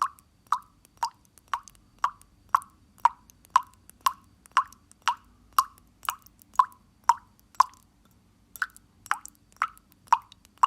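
Water dripping: single drops plopping into water at a steady pace of about two a second, each a short hollow plop. The drops pause briefly about eight seconds in, then carry on.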